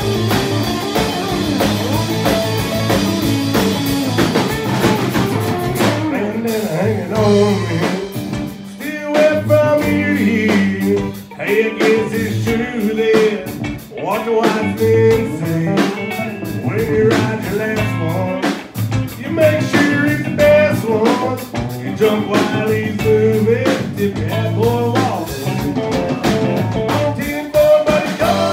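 Live country-rock band playing: electric and acoustic guitars, bass and a drum kit keeping a steady beat, with a man singing lead over most of it after an instrumental opening of a few seconds.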